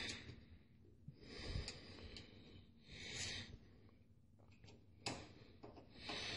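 Faint breathing close to the microphone, a soft breath about every two seconds. Light clicks and ticks from a screwdriver driving a screw into a computer's sheet-metal case, with one sharper click about five seconds in.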